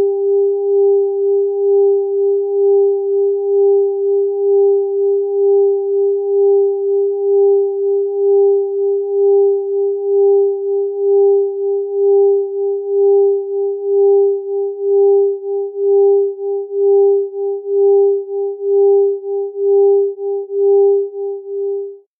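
Pure electronic sine tones set close in pitch so that they beat against each other: a steady mid-pitched tone with a fainter higher tone above it, swelling and fading about twice a second. The pulsing grows deeper in the second half, and the sound cuts off suddenly near the end.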